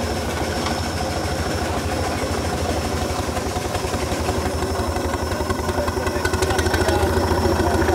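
4-inch scale Foden steam traction engine running steadily with a rapid, even mechanical beat, getting a little louder near the end.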